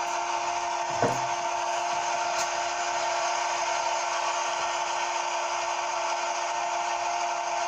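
A CNC machine running with a steady hum and hiss, with one knock about a second in.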